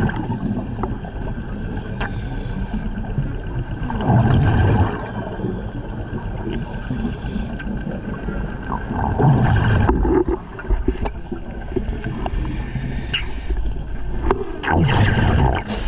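Underwater sound of a diver breathing at depth: a steady low rumble broken by gurgling swells of exhaled air bubbles, three times at about five-second intervals.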